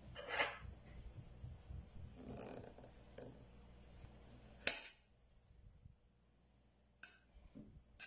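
Spoon scraping through frozen ice-cream cake and clinking against the plate, with one sharp clink a little after halfway and a few lighter taps near the end.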